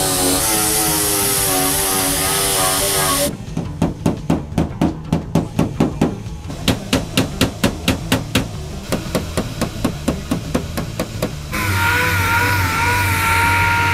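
Hammer beating on car body sheet metal in quick, even runs of strikes, about four or five a second, as crash damage is worked out. A steady, wavering machine whine runs before the hammering and starts again near the end.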